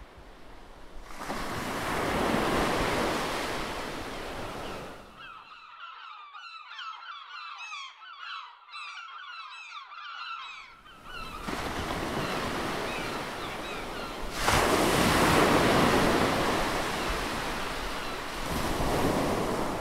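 Ocean surf washing and breaking on a shore. In the middle the surf drops away and a flock of birds is heard calling in quick, repeated chirps; the surf then comes back, louder in the last few seconds.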